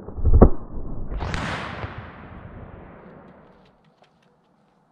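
Thompson Center .50 caliber Hawken flintlock rifle firing: a loud, sharp report about half a second in. About a second later a long rush of sound follows and fades away over two or three seconds.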